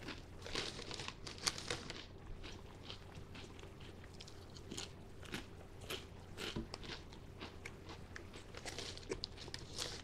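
A person chewing a mouthful of wavy potato chips close to the microphone: irregular crisp crunches, thickest in the first couple of seconds and again near the end.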